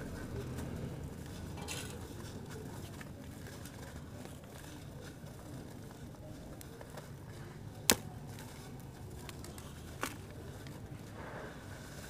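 Wet charcoal-ash chunk being crumbled by hand, grit and lumps falling into shallow water in a tub. A single sharp click about eight seconds in, the loudest sound, and a fainter one about two seconds later.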